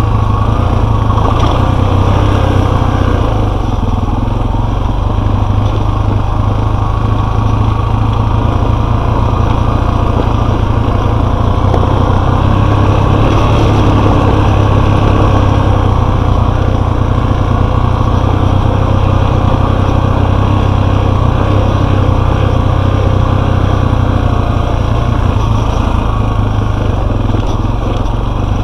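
Enduro motorcycle engine running steadily while riding, with only small changes in engine speed.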